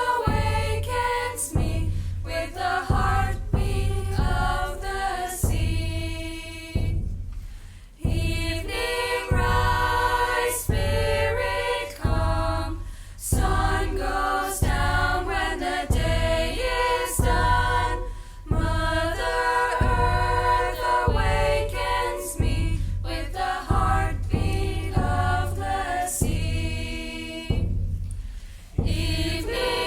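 A choir singing a chant-like song with a live band accompanying, a steady low bass pulse and regular percussion hits under the voices.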